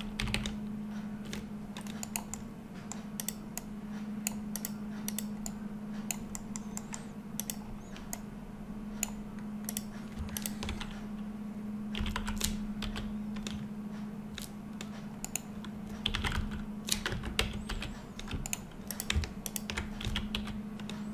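Computer keyboard keys and mouse buttons clicking irregularly while a 3D model is edited, with quicker clusters of clicks near the middle and later on. A steady low hum runs underneath.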